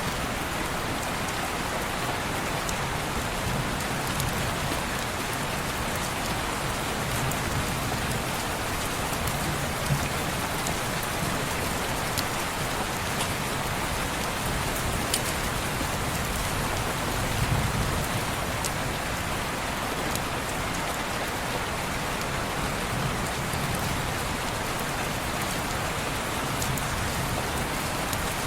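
Steady rain falling on a window and surrounding surfaces, an even wash of sound with a few sharp ticks now and then.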